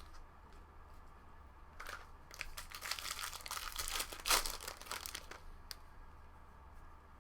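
Foil wrapper of a baseball card pack crinkling and tearing as it is opened, from about two seconds in and lasting about three seconds, loudest near the end.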